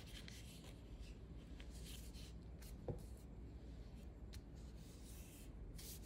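A sheet of copy paper being folded and pressed flat by hand: faint rustling and rubbing strokes as fingers work the creases, with one light knock about three seconds in.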